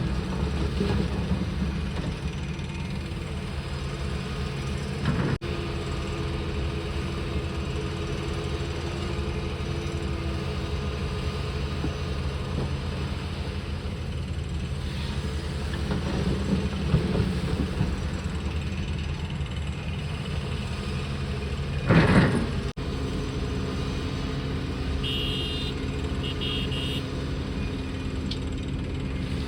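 Heavy diesel engine of an excavator or tipper truck running steadily. There is a sharp clank about five seconds in and a louder crash about twenty-two seconds in. Several short high beeps come near the end.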